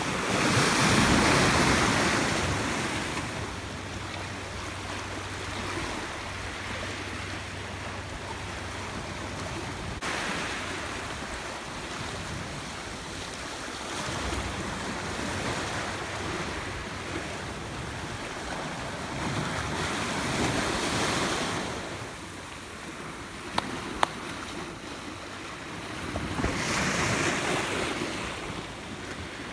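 Sea waves washing ashore over a steady hiss of surf, with louder surges about a second in, around twenty seconds and near the end. Two short clicks a little after twenty-three seconds.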